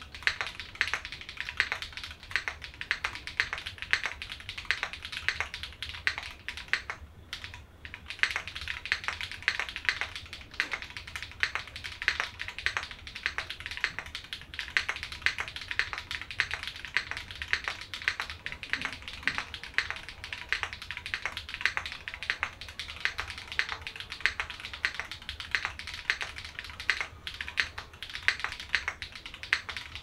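Continuous fast typing on a Leaf65 mechanical keyboard with Glorious Panda tactile switches lubed with Tribosys 3203, mounted on an aluminum skeleton plate with tuned C3 Equalz stabilizers. The key clicks run densely, with a brief pause about seven seconds in.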